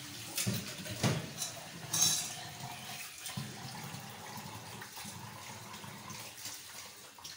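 Wooden spatula stirring thin yogurt and gram-flour kadhi in a cooking pot: liquid sloshing, with a few sharp scrapes against the pot in the first two seconds.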